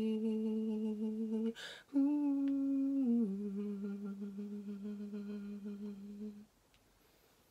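A man humming the closing notes of a ballad with his mouth closed. He holds a long note, takes a quick breath about a second and a half in, then hums a higher note that steps down and is held until it stops about six seconds in.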